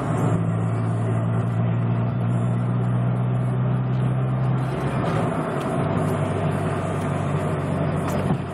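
Mazda MX-3's 1.6-litre four-cylinder engine running steadily under way. The intermittent misfire has cleared for the moment, with no sputtering. The engine note changes about five seconds in.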